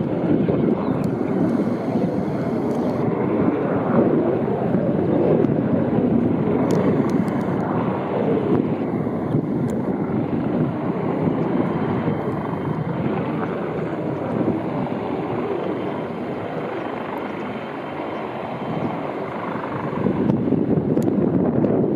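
Helicopter in flight: a steady, loud rotor and engine rumble that eases a little midway and swells again near the end.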